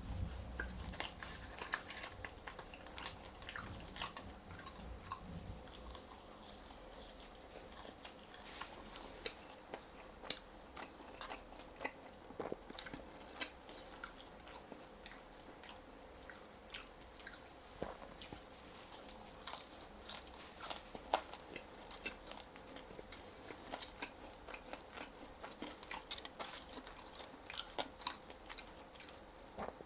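A person biting and chewing crispy french fries, with irregular crunchy clicks throughout.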